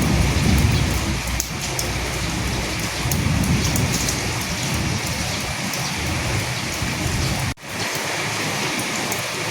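Steady rain falling, with fine pattering drops and a low rumble of thunder swelling in the first half. About three quarters through, the sound cuts out for an instant and comes back with less of the low rumble.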